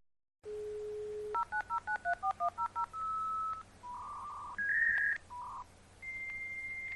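Dial-up modem connecting: a steady low tone, then a quick run of about ten touch-tone dialing beeps, followed by a series of electronic handshake tones that jump between pitches, ending in a long steady high tone.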